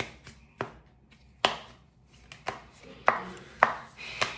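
Tarot cards being handled on a table while a card is drawn: a series of sharp taps and clicks at uneven intervals, about seven in all.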